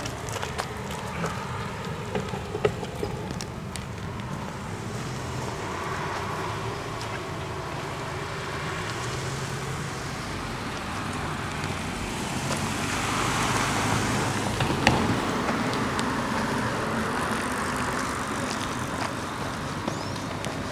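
Road traffic: a vehicle passes, its noise swelling to a peak a little past the middle and then fading, over a steady traffic hum. Footsteps sound in the first few seconds.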